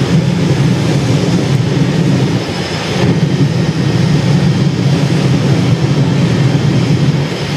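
Jet car's jet engine running on afterburner, a loud steady roar that dips briefly about two and a half seconds in and eases off near the end.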